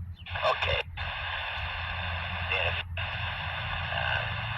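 Two-way radio scanner hissing with static from an open transmission, cutting out briefly about a second in and again near three seconds, over a steady low hum.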